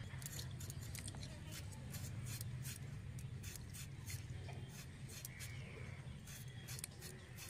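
A potato peeled against the upright blade of a boti, a fixed curved kitchen blade, making a quick series of short scraping strokes, about two to three a second, over a steady low hum.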